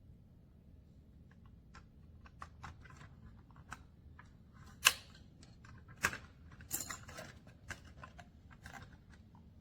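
Small hard objects being handled: irregular clicks and knocks. The loudest is a sharp knock about five seconds in, with another about a second later.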